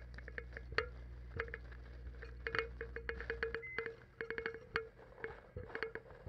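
Playback of a piezo contact mic's own signal while it sits in a cup of water in a running microwave: a dense, irregular run of sharp crackles and pops over a steady low electrical hum, which stops about three and a half seconds in while the crackling carries on.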